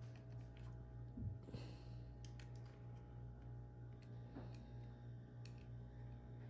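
Faint scattered clicks and taps of small plastic controller parts being handled, over a steady low electrical hum, with a short breathy hiss about a second and a half in.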